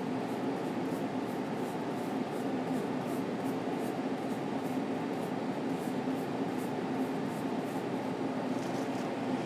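Faint, quick scratchy strokes, about three a second, of a long flat brush scrubbing oil paint onto a linen panel, over a steady low hum of room ventilation or a fan that is the loudest sound.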